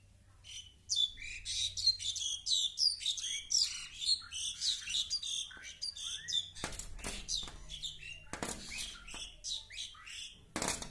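Pied myna calling rapidly at its own reflection: a dense run of varied chirps, squeaks and whistles. A few sharp knocks sound against the glass in the second half.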